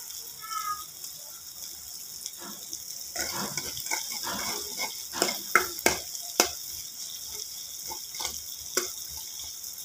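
Kitchen sounds at the pot or sink: water sloshing, with scattered clinks and knocks of utensils. The sharpest knocks come in a cluster about five to six and a half seconds in, and a brief high chirp is heard just after the start.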